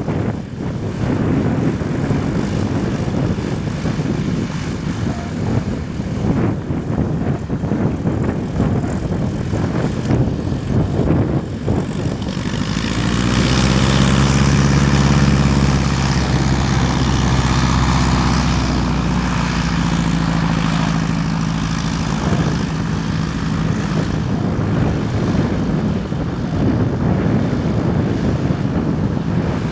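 Bölkow Bo 207's four-cylinder Lycoming piston engine and propeller running as the plane taxis on grass: the engine note grows loud as it passes close, about twelve to twenty seconds in, its pitch bending down as it goes by, then fades as it moves away. Strong wind buffets the microphone throughout and covers the engine in the first third.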